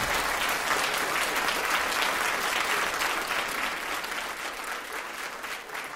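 Audience applauding, swelling at first and thinning out toward the end.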